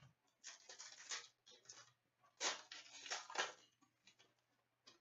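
Foil wrapper of a hockey card pack crinkling as it is torn open, in two main bursts with a few smaller crackles.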